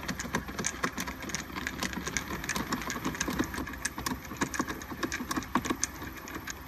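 Dense run of small irregular clicks and ticks, several a second, as a screwdriver works out the screws that hold the factory radio in its dash mounting frame.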